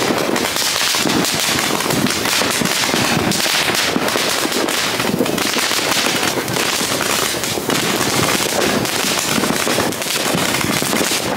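Ground fountain firework spraying sparks, giving off a dense, continuous crackling hiss that stays even throughout.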